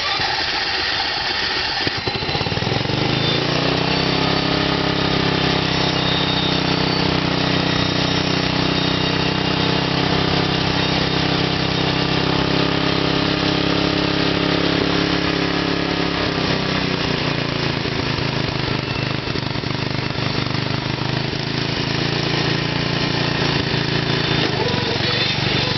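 The small engine of a mower-based lawn cart running while it is ridden. The engine speed climbs over the first few seconds and holds steady, then drops about sixteen seconds in and settles at a lower steady speed.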